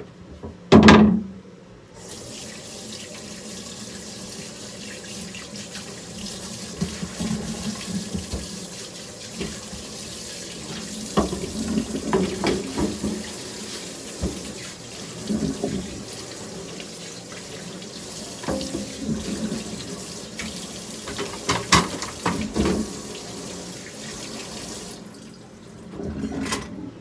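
Kitchen tap running steadily into a sink while a wooden cutting board and a knife are rinsed, with scattered knocks and clatters as they are handled. A loud knock comes about a second in, before the water comes on, and the tap shuts off near the end.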